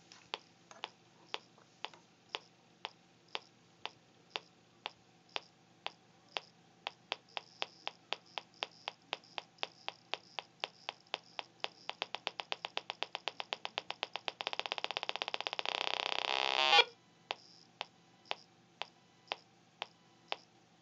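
Electromagnetic field of a transformer-built EM pump, picked up by an inductive telephone pickup and played through a mini amplified speaker: sharp regular clicks, about two a second, that speed up into rapid ticking and then a dense loud buzz for about two seconds. The buzz cuts off suddenly about two-thirds of the way through, and slow clicks resume over a faint steady hum.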